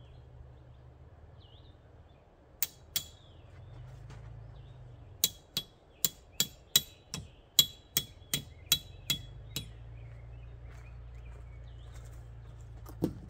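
A hammer drives a stake into the ground at the foot of an awning pole. Two blows come first, then after a short pause a steady run of about a dozen blows, two to three a second, each with a short ring.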